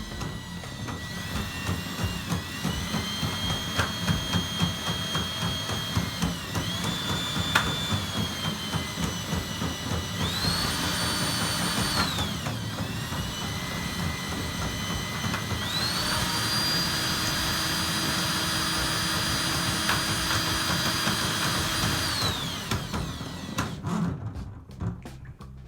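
Electric drain-cleaning machine's motor running as a clogged tub drain line is snaked. Its whine speeds up and winds down several times, then drops away near the end.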